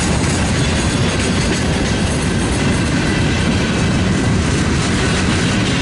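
Freight train rolling past close by: a steady rumble of steel wheels on the rails with a running clickety-clack as the boxcars, tank cars and hoppers go by.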